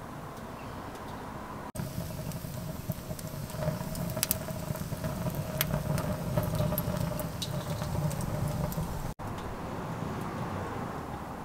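Split oak pieces burning on a charcoal base in a smoker's firebox, crackling with many sharp pops and snaps over a low rush of fire. This lasts from about two seconds in to about nine seconds in; before and after it there is only a quiet steady background.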